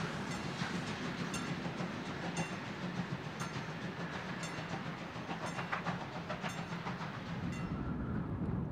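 Steam locomotive hauling a freight train away, a steady rumble with sharp clicks about once a second. Near the end the sound cuts to a duller, quieter rumble.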